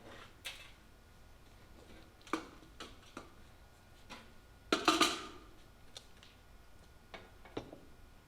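Scattered knocks and clicks of objects being handled and set down on a shop worktable, with one louder rattling clatter about five seconds in.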